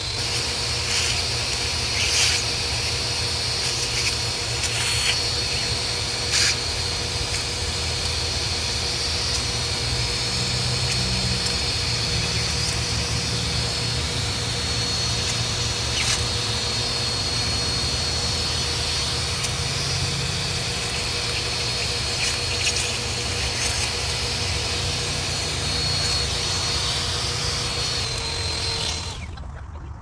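Vacuum cleaner running steadily with a thin high whine, sucking wasps off their nest through a plastic tube into a clear canister. A few sharp ticks come through as wasps strike the tube, and the motor cuts off about a second before the end.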